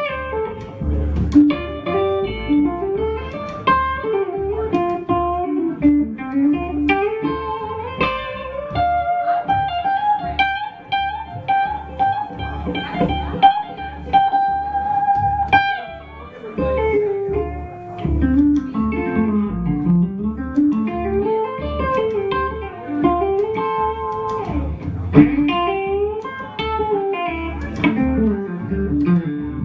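Instrumental break: a guitar plays lead lines with bent, sliding notes and one long held note in the middle, over a plucked upright bass.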